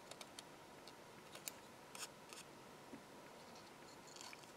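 Small craft scissors snipping into thin printed card, a few faint, sharp snips at irregular intervals.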